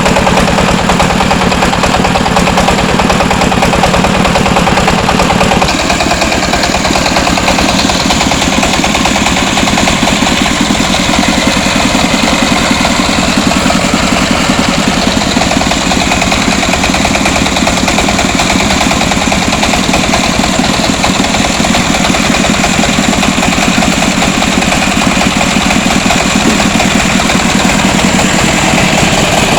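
Engine of a three-wheeled mobile rice huller running loudly and steadily. Its sound shifts about six seconds in, as the low hum drops away, then runs on unchanged.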